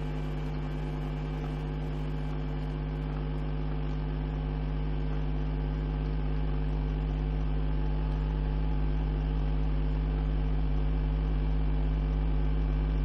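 Steady electrical hum with a stack of buzzing overtones, slowly growing a little louder.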